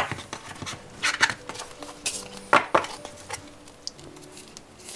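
Rustling and crinkling of paper and plastic packaging as sticker sheets and a roll of washi tape are handled, in short irregular rustles, the loudest about a second in and around two and a half seconds in.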